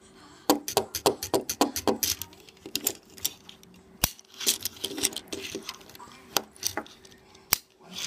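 Small die-cast toy car handled on a wooden tabletop: a string of irregular sharp clicks and taps from its metal body and plastic parts against the table and fingers, with single louder clicks about four and seven and a half seconds in.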